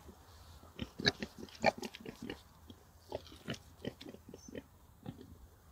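Pigs giving short, irregular grunts while nosing around a feed pan.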